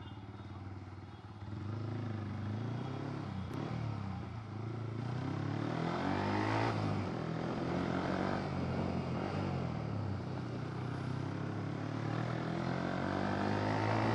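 Yamaha R15 V3's single-cylinder engine with an aftermarket exhaust, ridden along, its pitch rising and falling several times as the throttle is opened and eased off.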